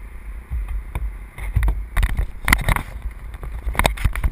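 Wind buffeting an action camera's microphone as a low rumble, with scattered knocks and rustles that bunch up about two seconds in and again near the end as the landed model plane is reached and handled. The plane's electric motor is not running.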